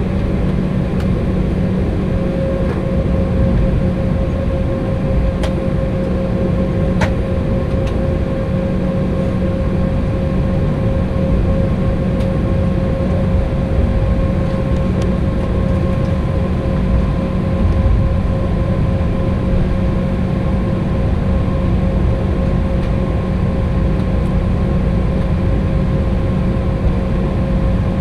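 Cabin noise inside an Embraer E190 taxiing: the steady hum and whine of its GE CF34 turbofans at taxi power, with no build-up. A couple of faint ticks come about five and seven seconds in.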